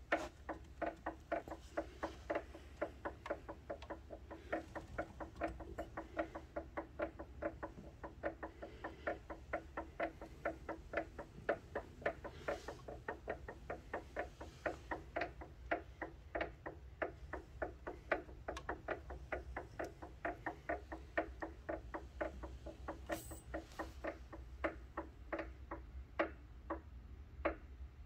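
Elliptical trainer's drive mechanism clicking rhythmically, about three clicks a second, over a low steady hum. This is the unexplained noise the machine has developed.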